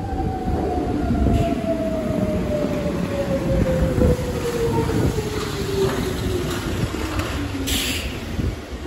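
Nishitetsu Kaizuka Line electric train pulling into the platform. Under the low rumble of the wheels, a motor whine falls steadily in pitch as the train brakes, and there is a short hiss near the end.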